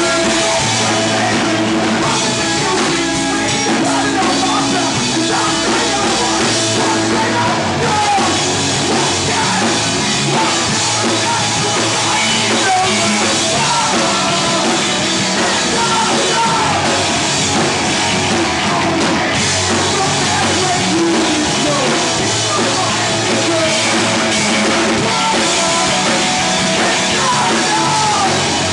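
Rock band playing loud live music, with guitar and a drum kit.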